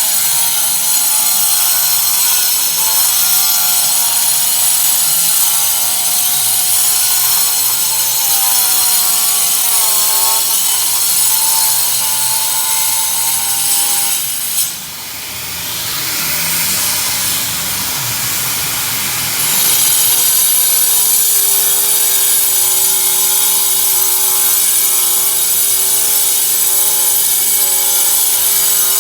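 Electric power tool cutting, its motor whine wavering in pitch as it bites. About halfway through the whine drops away for a few seconds, leaving a hissing, grinding noise, and then it picks up steadily again.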